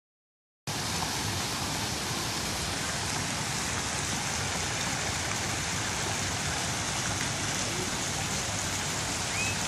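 Steady rushing hiss of splash-pad fountain jets spraying water onto the shallow pool, starting abruptly under a second in.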